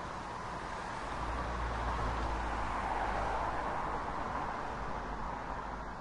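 City street traffic heard from an upper floor, with one vehicle passing below. Its rumble swells to a peak about halfway through and then fades.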